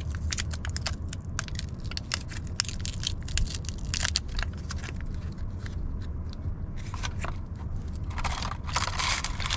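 Rapid, irregular crinkling, crackling and clicking of small items being handled, with a denser run of crinkling near the end, over a steady low hum.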